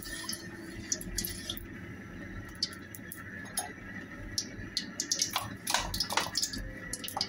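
Cooking oil heating in a karahi, crackling with scattered small pops over a steady low hiss as it comes up to frying heat.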